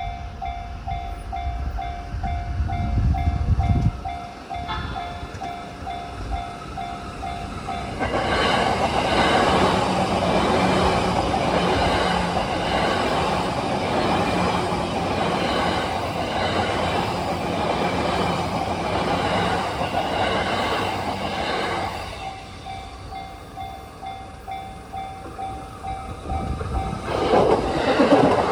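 Japanese railway level-crossing warning bell ringing about twice a second. A Yamanote Line E235-series electric train then passes over the crossing for about fourteen seconds, its wheels clattering over the rail joints and drowning out the bell. The bell is heard again after it, and another train starts passing near the end, with a low rumble about three seconds in.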